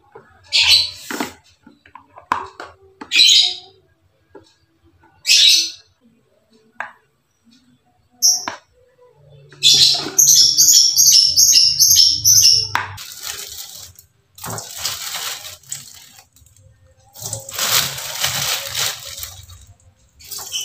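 A plastic rice paddle scraping and scooping cooked rice out of a rice cooker's metal inner pot in a few short strokes. About ten seconds in there is a quick run of high bird-like chirps, followed by two longer stretches of hiss.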